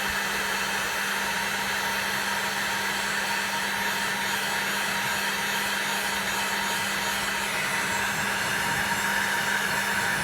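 Electric heat gun running steadily with a constant blowing hiss and motor hum, shrinking heat-shrink crimp connectors on wiring. It gets slightly louder near the end.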